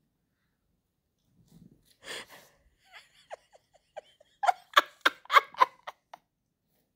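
A person laughing: a breath and a few small giggles, then a run of quick, loud laughs about two thirds of the way through, after a quiet start.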